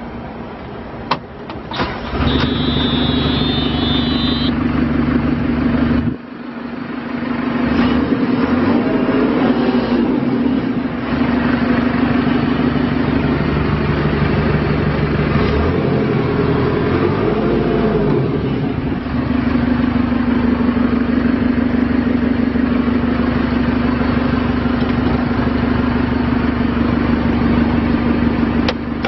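The diesel engine of a 2012 JCB 3CX backhoe loader starting about two seconds in, with a high warning buzzer sounding for a couple of seconds. Its note then rises and falls through the middle and settles to a steady run.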